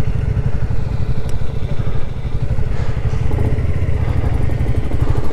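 Royal Enfield Classic 350's single-cylinder engine running steadily at low speed as the bike rolls slowly along.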